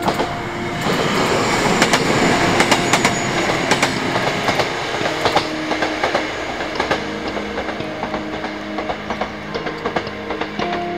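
Two-car KiHa 11 diesel railcar set passing, its wheels clicking rapidly over the rail joints. The sound swells about a second in and eases off in the second half.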